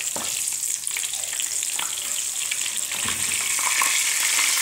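Breaded onion rings with mozzarella deep-frying in hot oil in a shallow frying pan: a steady sizzling hiss full of small crackles, growing slightly louder toward the end. A metal skimmer clicks and scrapes against the pan now and then as the rings are moved.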